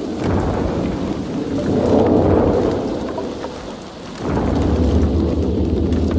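Heavy rain with rolling thunder: one low rumble swells about two seconds in and fades, and another heavier rumble starts a little after four seconds in.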